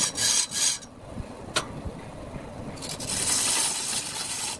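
A rag packed with wood shavings pressed against a large wooden cylinder spinning on a lathe, burnishing it with a rasping rub. There are two short strokes at the start, a sharp click about one and a half seconds in, then a longer, steadier stretch of rubbing from about three seconds.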